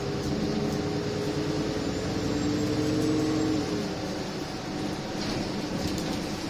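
Cabin running noise of an Alexander Dennis Enviro 300 diesel single-deck bus: a low engine drone with a steady whine on top. The whine fades and the noise drops a little a little under four seconds in.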